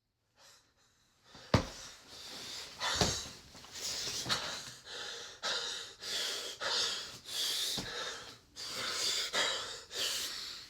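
A quick run of short, breathy hissing bursts, about one or two a second, with a few sharp clicks among them near the start.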